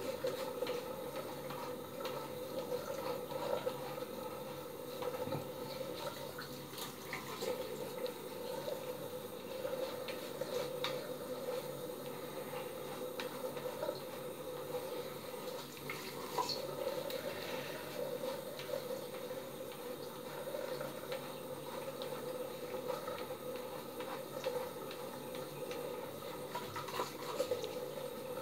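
A three-bladed cartridge razor rasping in short, irregular strokes through a month's growth of hair on a gel-lathered scalp, over a steady rushing hiss.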